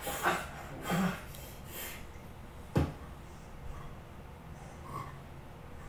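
Short strained grunts and breaths from people grappling, then a single sharp thump a little under three seconds in, after which only faint low rustling is left.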